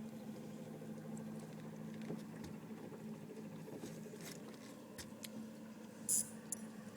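Steady low hum, part of it fading out about three seconds in, with scattered light clicks and a brief high scrape about six seconds in.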